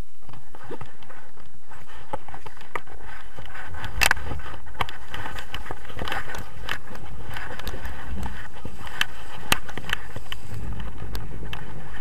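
Steady wind rushing over an action camera's microphone, with scattered sharp clicks and rattles, the loudest about four seconds in.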